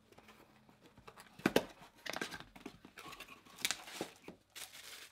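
Handling of a cardboard mug box and a mug wrapped in paper being pulled out of it: irregular rustling and crinkling of paper with short taps and scrapes of cardboard. The loudest knock comes about a second and a half in.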